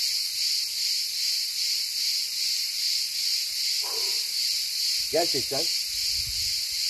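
Steady, high-pitched chorus of summer insects, a shrill chirring that pulses about three times a second.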